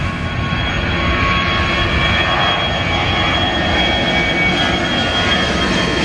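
Engines of a Garuda Indonesia twin-engine jet airliner passing low overhead on approach, a steady loud jet rumble with a thin high whine over it, in heavy rain and gusting wind.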